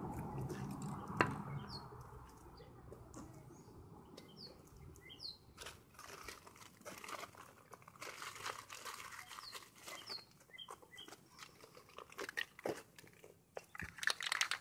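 Faint crinkling and light clicking from hand work on a fridge's painted metal top, with a few short bird chirps in the background. There is a quick run of clicks near the end.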